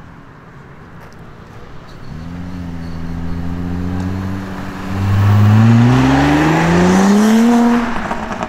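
Engine of a tuned Audi estate pulling away: a low steady note as it rolls past, then a loud note climbing in pitch for about three seconds as it accelerates hard, dropping off just before the end.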